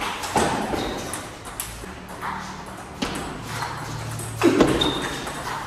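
Table tennis rally: the celluloid ball clicking sharply off the paddles and the table in an irregular series of hits, with a louder burst about four and a half seconds in.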